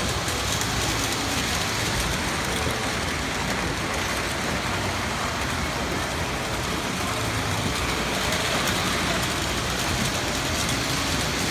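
Steady rushing background noise with faint, distant voices now and then.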